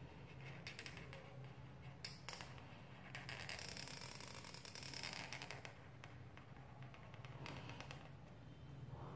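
Black felt-tip pen scratching across paper in several strokes, the longest lasting about two and a half seconds in the middle, over a faint steady low hum.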